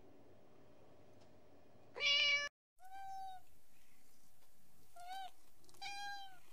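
Domestic cats meowing: one loud meow about two seconds in that cuts off suddenly, then after a brief silence three shorter meows.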